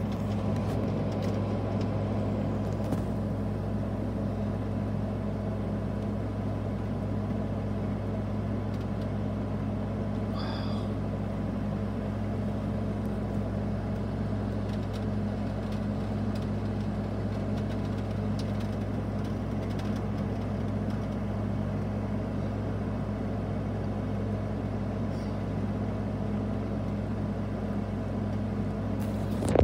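Steady rain falling, over a constant low hum.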